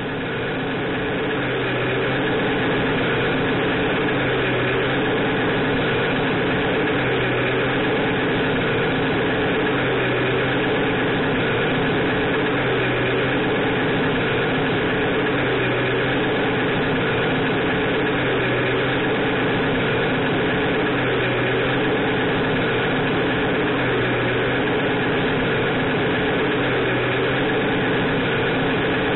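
Electronic sound module in an RC scale truck, a Beier USM-RC2, playing a diesel truck engine sound at a steady idle. A low pulse in the loop repeats about every three seconds, and the sound fades in at the start.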